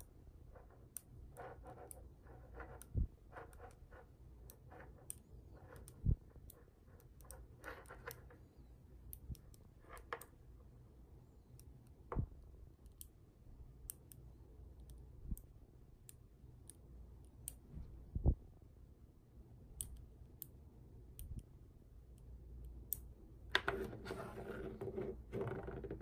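Mini neodymium magnet balls clicking as they snap together one by one, in sharp, irregular clicks with a few louder single knocks. Near the end comes a longer, louder rustling clatter.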